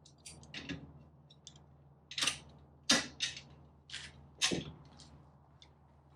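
Vise-Grip locking pliers working at a seized front license plate fastener, giving a run of sharp metallic clicks and cracks, the loudest few coming in the middle.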